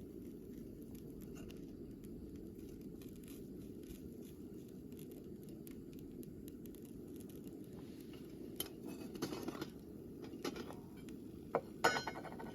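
Faint light clicks and clinks of small hard objects over a steady low hiss, with a busier run of clinks and scrapes in the last few seconds.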